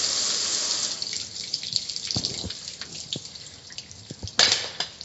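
Water spray hissing against a metal gas grill, cutting off about a second in. Then water dripping off the grill with scattered small clicks, and a short, loud burst of noise near the end.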